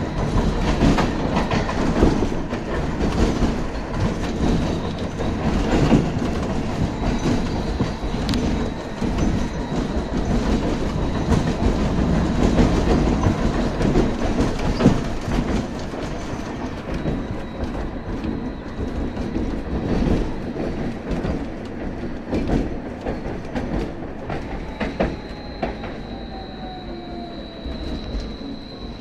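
Inside a BKM 802E low-floor tram under way: wheels rumbling on the rails with clicks and knocks over joints, and a thin high whine from the traction equipment. Near the end the noise eases and a whine falls in pitch as the tram slows.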